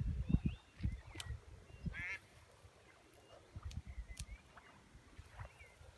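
Waterfowl calling on open water: scattered short calls, with one quick run of repeated notes about two seconds in. Low rumbles come in the first second or so.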